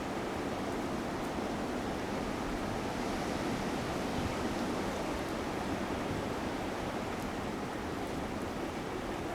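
Steady rushing noise of a coastal storm: strong wind with rain, swelling slightly in the middle.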